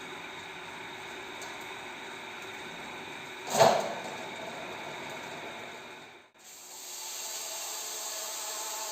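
Electric drill turning a hole saw that grinds through the thin sheet steel of a bucket wall, with one sharp knock about three and a half seconds in. The sound drops out briefly near six seconds, then the cutting resumes with a steady metallic squeal.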